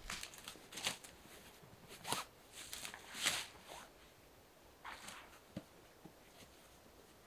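Footsteps in dry fallen leaves and the rustle of a dark bag being picked up and handled, as a series of short scuffs, the loudest about three seconds in.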